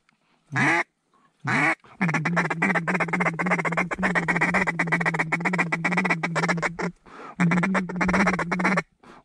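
Duck call blown by a hunter: two short quacks, then a long run of fast chattering notes lasting about five seconds, and another shorter run near the end.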